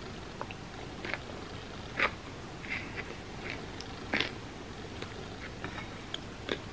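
Close-miked chewing of crispy fried mochi bread: a handful of short, sharp crunches spaced a second or so apart, over a steady background hiss.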